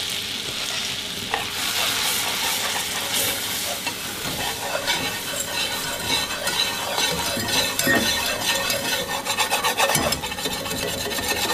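Melted butter sizzling in a stainless steel skillet as flour is cooked into a roux, with a wire whisk scraping and clicking against the pan bottom. The whisking starts a few seconds in and goes on in quick, rapid strokes.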